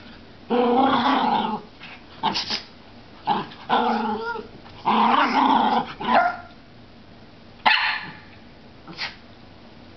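Two Schnoodles play-fighting, growling and barking in several loud bursts over the first six seconds. These are followed by two short, sharp bursts near the end.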